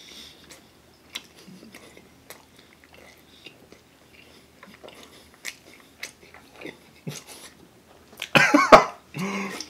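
A man chewing a mouthful of pizza with his mouth closed: soft, scattered wet clicks and smacks. Near the end comes a loud, short burst of his voice, then a second, shorter one.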